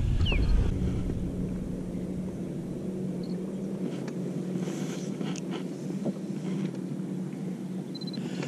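Steady low hum of a small electric motor aboard a fishing boat, with a light hiss of wind and water and a few faint clicks.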